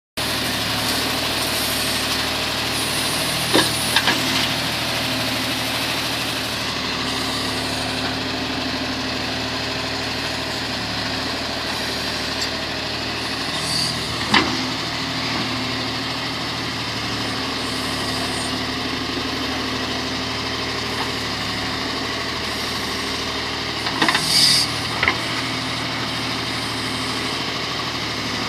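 Heavy diesel engine running steadily at idle. A few short sharp knocks cut through it, about four seconds in, again around the middle, and twice near the end.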